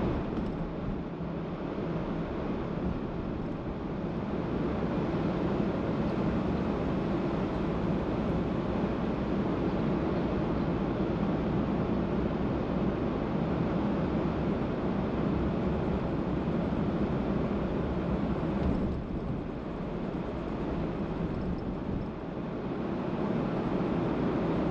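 Steady road and tyre noise of a car driving, easing off for a couple of seconds about nineteen seconds in, then building back up.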